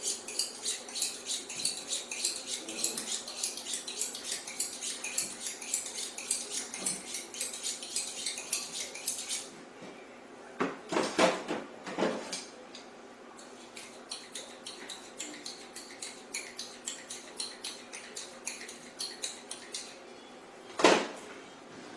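Kitchen knife being honed on a sharpening rod: quick metal-on-metal scraping strokes, about three a second. Midway the strokes break off for a few louder knocks, then resume, and a single sharp knock comes near the end.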